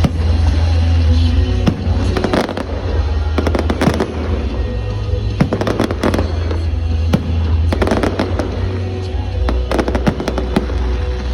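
Fireworks going off in clusters of sharp bangs and crackles, several volleys over the stretch, with music playing underneath.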